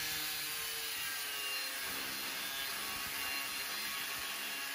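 Angle grinder with a cut-off wheel cutting 3/16-inch steel plate: a steady high grinding whine, its pitch dropping about two seconds in.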